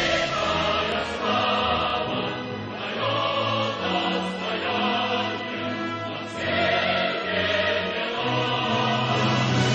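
Background music: a choir singing over an orchestra, in held chords that change every second or two.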